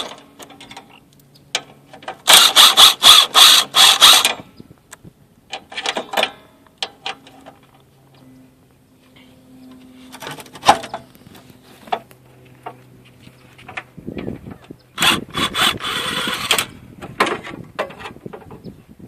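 Ratchet wrench with a 10 mm socket clicking in two quick bursts, a couple of seconds in and again near the end, as bolts on a radiator fan assembly are run out, with scattered metal clinks of tools and parts in between.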